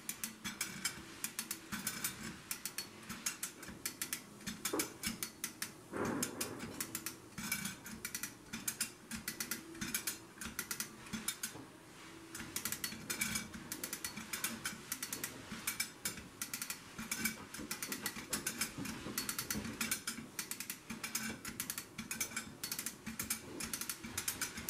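Hand chain hoist being worked to lift the head off a steam engine's intermediate pressure cylinder: a long run of rapid ratchet clicks and chain rattle, with a short pause about halfway.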